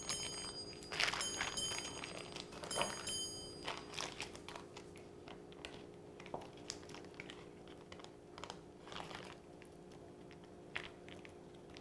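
Foil wrapper of a cream cheese block crinkling as it is unwrapped, then a knife cutting through the cream cheese and tapping on a plastic cutting mat in scattered soft clicks. The crinkling is loudest in the first few seconds, and a faint steady hum runs underneath.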